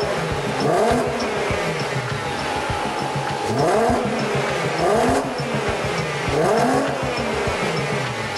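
Volkswagen Golf R32's 3.2 V6 engine being blipped repeatedly through a Milltek exhaust, about five revs in a row, each rising and then falling back.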